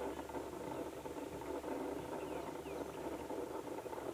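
Faint steady low hum, with a few brief high chirps.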